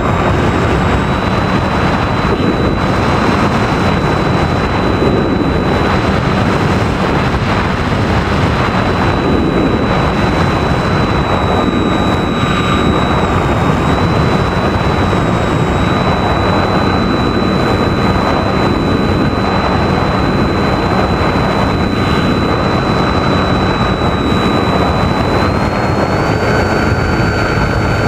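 RC model airplane's motor and propeller running steadily, heard from the onboard FPV camera with heavy wind rush over the airframe. A steady whine runs through it and steps up in pitch near the end as the throttle is opened.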